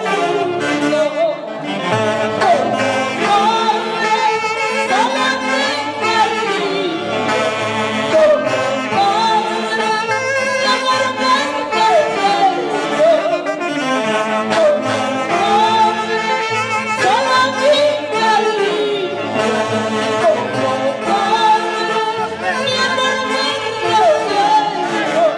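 A woman singing a Mantaro Valley folk song live into a microphone, backed by a band with saxophones.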